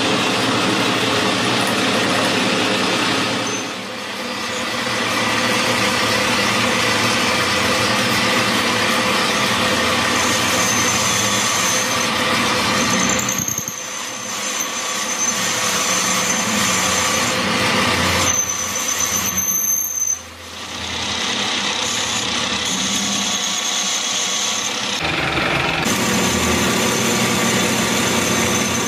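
Metal lathe running and cutting a spinning steel bar: a steady machining noise, with a thin high squeal from the cutting tool that comes and goes through the middle. The noise dips briefly three times.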